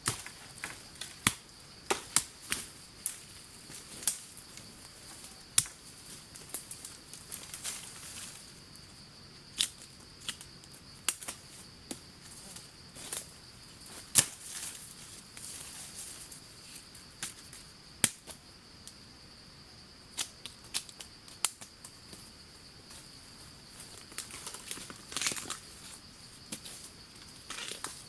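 Irregular sharp snaps and cracks, with short stretches of rustling, as plants are handled in the field, over a steady high buzz of insects.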